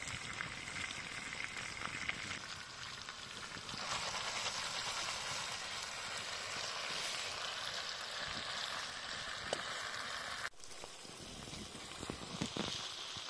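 Pike and onion sizzling in a frying pan over a campfire. The sizzle grows louder about four seconds in and drops off suddenly a little after ten seconds, leaving a quieter sizzle with a few clicks of a utensil against the pan near the end.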